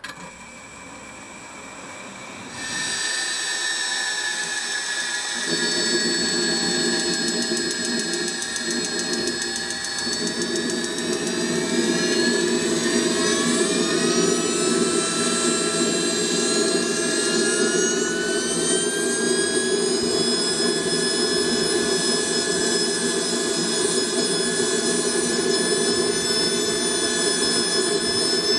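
SWIWIN SW220B model jet turbine auto-starting, on its first start. A rising whine builds, and a rushing combustion roar comes in about five seconds in. The whine then climbs in pitch as the turbine spools up, and it settles to a steady idle about twenty seconds in.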